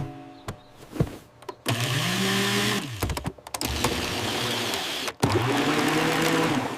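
A motor whirring, twice: each time it spins up in pitch, holds briefly and winds back down.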